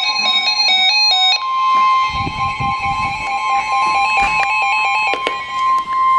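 Background music with a stepping melody, over which a steady single alert tone starts and sounds continuously, typical of the NOAA Weather Radio 1050 Hz warning alarm tone that comes before a warning message. The music stops about five seconds in, leaving the tone on its own.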